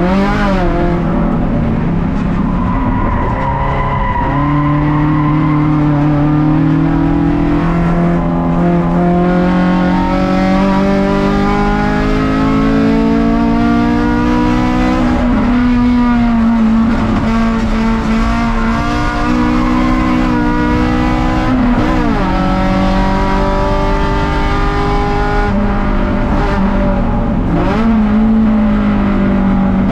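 Race car engine heard from inside the stripped, roll-caged cabin, accelerating hard. Its note climbs steadily and drops back sharply several times, around 4, 15, 22 and 27 seconds in.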